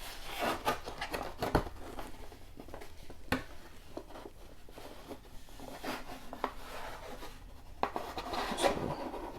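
Hands unpacking a collectible statue: scattered taps, clicks and rustling of packaging as its protector is taken off.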